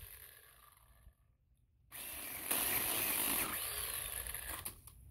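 Greenworks 40 V cordless electric pole chainsaw running and cutting into a fallen tree limb, a whirring motor and chain noise. The sound fades and drops out about a second in, comes back about two seconds in, is loudest around three seconds in with a brief rising whine, then fades.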